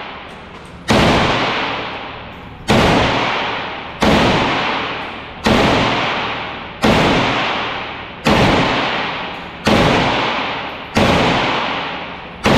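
Handgun fired eight times at an even pace, about one shot every second and a half, with another shot at the very end. Each sharp report rings on and dies away slowly in the enclosed indoor range lane.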